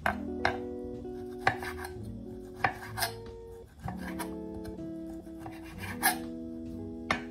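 Chef's knife slicing through a firm cacciatore sausage and knocking on a wooden cutting board: about seven sharp, irregular knocks. Gentle background music plays underneath.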